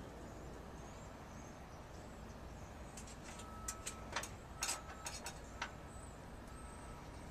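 A low steady background, then about three seconds in a quick run of sharp clicks and taps lasting a couple of seconds, from hands working on parts inside a school bus's open side access compartment.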